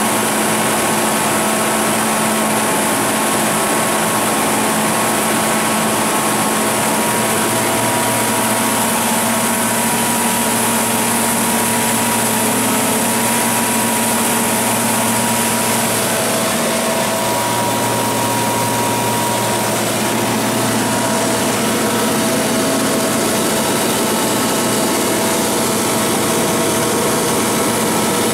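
Ford LSG-875 7.5-litre V8 natural-gas engine of a Kohler 100 kW standby generator set running steadily at its rated speed, with the generator putting out 60 Hz.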